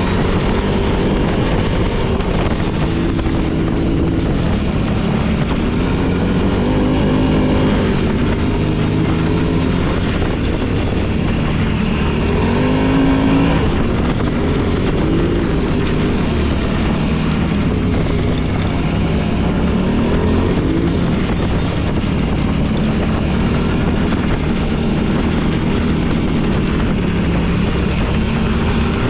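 Off-road vehicle's engine running under way on a trail, its pitch rising and falling over and over as the throttle is worked, with a steady rumble of the ride beneath it.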